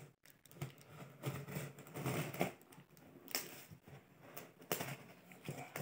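Small scissors cutting and slitting the plastic packing tape on a cardboard parcel: irregular scraping and crackling of tape and cardboard, with a few sharp clicks.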